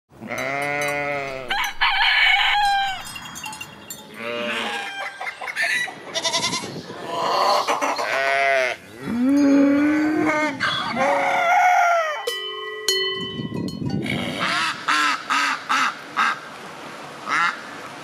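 A quick succession of different farm animal calls: sheep bleating, a cow mooing about ten seconds in, and poultry calls, ending in a run of five or six short calls.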